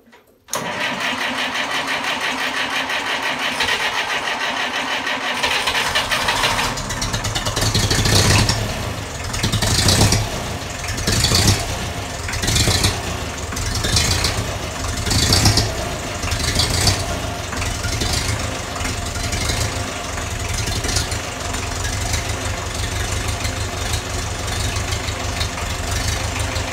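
Grey Ferguson tractor's engine cranked by its starter for about six seconds before it catches. It then runs with repeated surges of revs for about ten seconds before settling into a steady idle.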